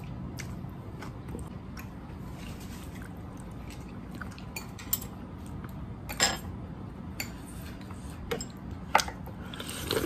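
Metal chopsticks and spoon clicking and clinking against a ceramic plate and bowl while eating, in scattered taps with a few louder clinks a little before halfway, just past halfway and near the end, over a steady low hum.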